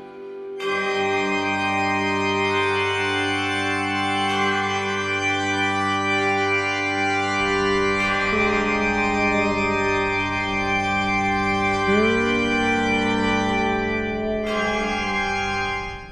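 Background music of slow, sustained organ-like keyboard chords, with the chord changing every few seconds.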